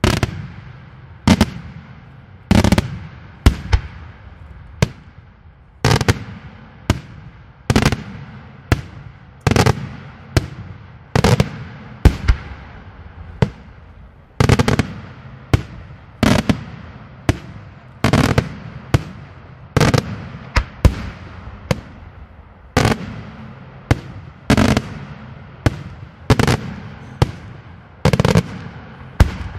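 Daytime aerial fireworks shells bursting in a steady series of loud bangs, about one a second, each trailing off in an echo.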